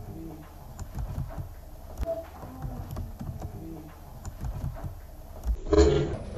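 Scattered soft keyboard typing clicks over a low room rumble, then a sudden louder, muffled burst about a second before the end.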